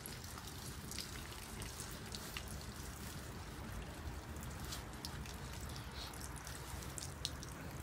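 Water trickling in a thin gravity-fed stream out of a Sawyer Mini hollow-fibre filter screwed onto an upside-down PET bottle, with scattered small drip ticks.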